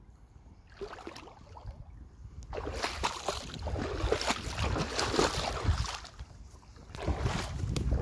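Footsteps of someone walking through the forest creek or along its bank, with rustling and irregular steps that grow louder from about two and a half seconds in, pause briefly after six seconds and pick up again.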